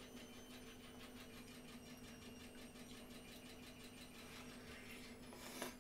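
A bite into a slice of watermelon: one short crunch about five and a half seconds in, over a faint steady high whine and low hum.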